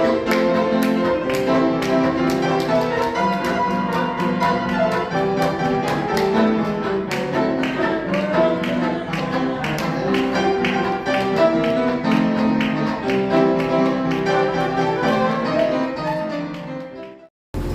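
Instrumental background music with a steady beat; it cuts off suddenly near the end.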